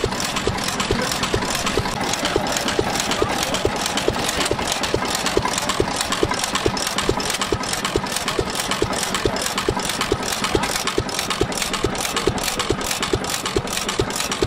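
Fairbanks-Morse Model Z single-cylinder stationary engine running at a steady speed, each firing stroke an even, sharp beat.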